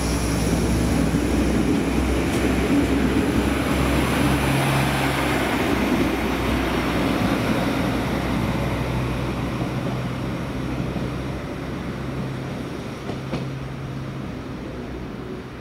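DB Regio diesel multiple unit pulling out, its diesel engines running under power and its wheels rolling on the rails. The sound fades steadily over the second half as the train draws away.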